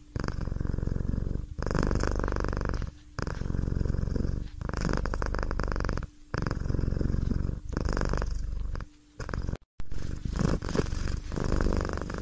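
A cat purring in even stretches about a second and a half long, with short breaks between them.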